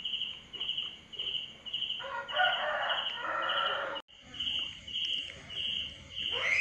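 Insects chirping in a steady pulsing rhythm, just under two chirps a second. A chicken calls for about two seconds, starting about two seconds in. The sound drops out for a moment near the end of that call.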